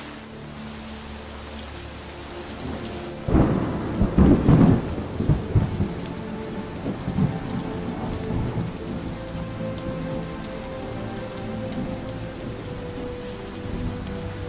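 Steady rain falling, with a sudden loud clap of thunder about three seconds in that rumbles on and fades over the next few seconds.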